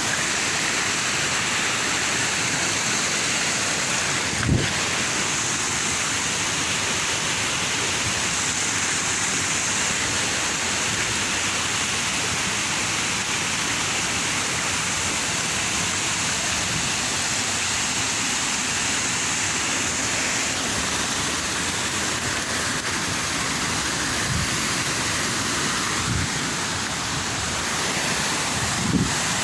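Waterfall's falling water, a steady loud rush. A single short knock about four seconds in.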